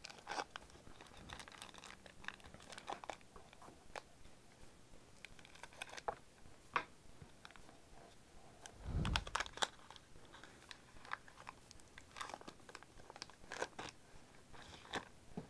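Foil booster-pack wrapper crinkling and tearing, with the crackle and click of trading cards being handled, in short irregular bursts. A single low thump comes about nine seconds in.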